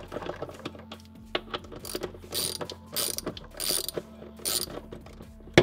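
Hand socket ratchet clicking in several short bursts of strokes, backing half-inch terminal bolts out of a new golf-cart motor controller. A single sharp click comes at the very end.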